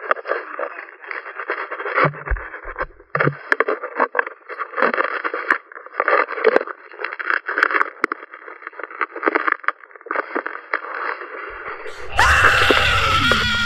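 Thin, muffled crackling, scraping and knocking of a GoPro Hero 3 in its housing being handled and rubbed against rock in a cramped tunnel: the camera's poor sound. About 12 seconds in it gives way abruptly to a louder, fuller sound with sliding tones.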